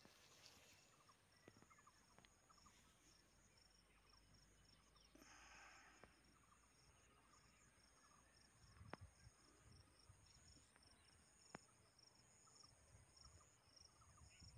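Faint insect chirping, a high pulse repeated at an even rate, with two soft clicks in the second half.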